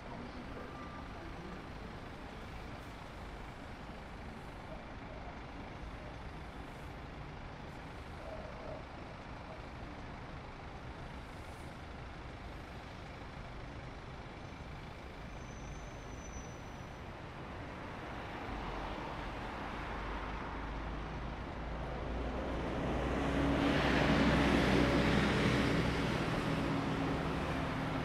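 Steady city traffic hum. In the last third a heavy road vehicle's engine grows louder, passes loudest about three quarters of the way through, then eases off.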